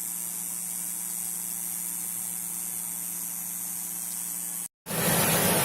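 Steady electrical hiss with a low hum. It cuts out abruptly near the end, and a louder rushing noise starts right after.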